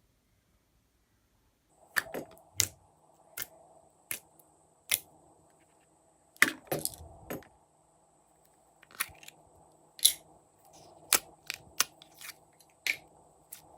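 Slime handled by hand, giving sharp, irregular clicks and crackles about once a second, with the sound of air pockets popping as it is pressed and pulled.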